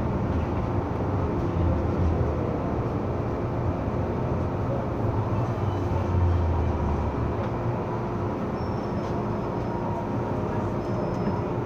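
MTR M-Train electric multiple unit running in an underground tunnel, heard from inside the carriage: a steady rumble of wheels on rail with a constant hum. The low rumble swells about five to seven seconds in, then settles.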